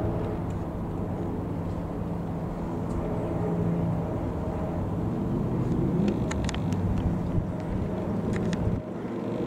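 Avid Flyer light aircraft's propeller engine droning steadily as it flies overhead, with a few faint ticks about six seconds in. The low drone drops away near the end.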